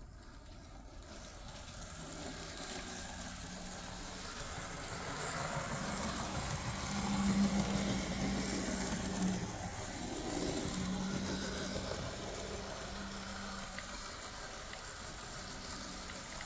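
Z-scale Märklin 4-6-0 steam locomotive running on track: its tiny electric motor hums steadily over a light rattle of wheels on the rails, swelling in the middle and easing off again.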